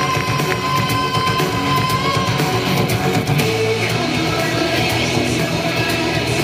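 Rock music with electric guitar and singing; a held high note ends about two seconds in.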